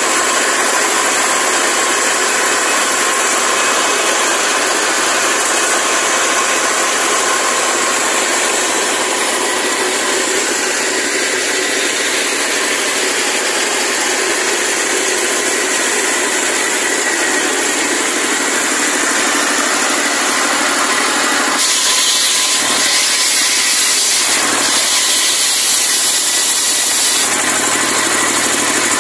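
Stationary diesel engine driving a large circular saw blade, running steadily with a high whine. From about 21 to 27 seconds in the sound turns hissier as the blade cuts through wood.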